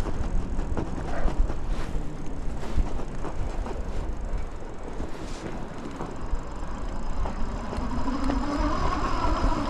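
A fat-tyre e-bike with dual hub motors being ridden through dry snow: wind buffeting the handlebar camera's microphone over the rumble of the tyres, with a faint motor whine that grows louder over the last couple of seconds.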